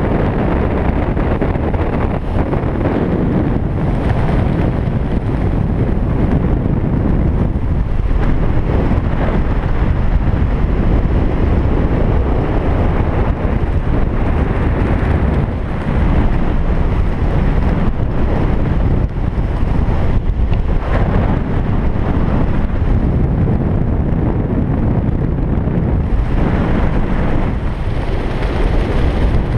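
Airflow rushing over a head-mounted camera's microphone during parachute canopy flight, a loud steady wind roar with no breaks. It comes from flying under the open canopy at about 27 mph forward speed.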